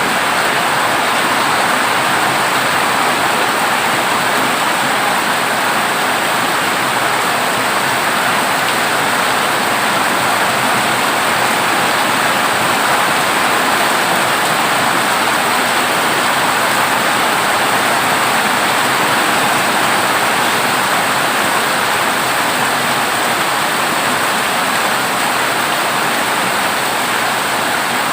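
Heavy rain falling on a corrugated zinc roof: a loud, steady rush of noise that holds even throughout, with no thunder standing out.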